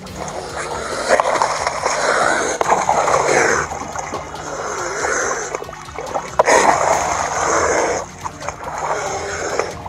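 Water splashing and sloshing close beside a small boat as a cougar swims alongside it, coming in surges of a second or two.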